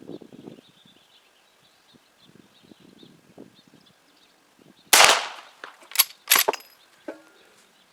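A single shot from an 1873-pattern lever-action rifle in .45 Long Colt, about five seconds in, with a short echoing tail. About a second later come two sharp metallic clacks, the lever being worked to eject the case and chamber the next round, then a lighter click.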